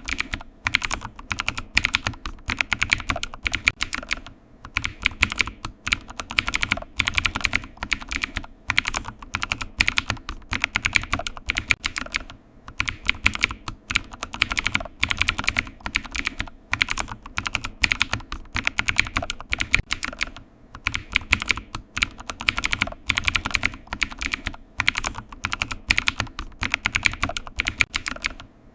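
Computer keyboard typing: fast, steady runs of key clicks, broken by a few brief pauses.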